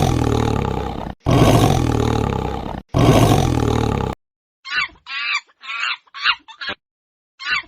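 Three long, loud roars from a large animal, each about a second and a half, followed in the second half by a run of short, higher-pitched calls.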